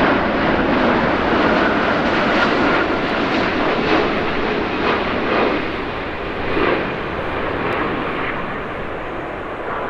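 Airbus A350 airliner on final approach, its twin turbofan jet engines giving a broad, steady jet rumble at approach power that slowly fades toward the end.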